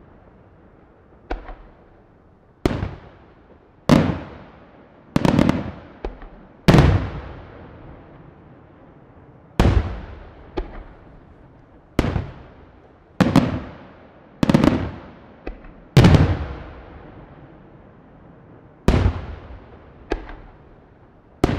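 Large aerial fireworks shells bursting one after another: about fifteen sharp bangs at uneven intervals of one to three seconds, each followed by a rolling echo that dies away over about a second.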